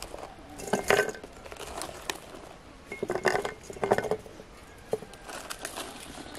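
Rose hips and berries dropped by hand into a glass teapot: a few short taps and clinks against the glass. The loudest come about a second in and in a cluster around three to four seconds in.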